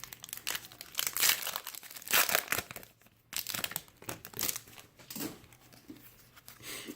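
Plastic wrapper of a trading-card pack being torn open and crinkled by hand. The crackling is loudest in the first three seconds, then softer and more scattered.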